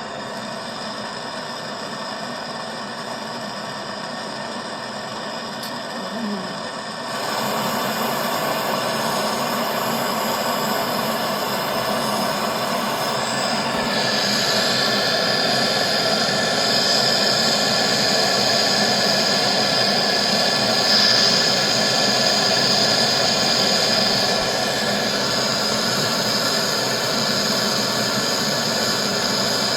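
A machine with a motor running steadily. It gets louder about seven seconds in, and a high whine joins it from about fourteen to twenty-four seconds in.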